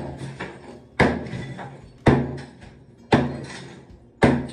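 Ball-peen hammer striking an old ceramic tile wall and its thick mortar bed, four heavy blows about a second apart. Each blow is followed by the clatter of broken tile and mortar falling.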